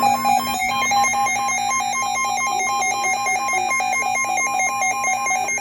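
Weather radio emergency alert alarm: an electronic tone warbling rapidly back and forth between two pitches, repeating steadily over a low hum.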